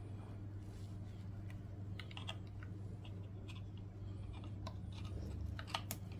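Light, irregular clicks and taps of small metal parts being handled as a slot car armature is seated in the commutator lathe's ball-bearing cradle and the drive belt is fitted, over a steady low hum.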